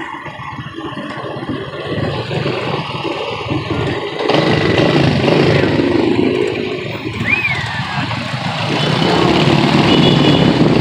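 Motor vehicle engine and road noise in traffic, getting louder about four seconds in, with a brief high chirp-like tone partway through.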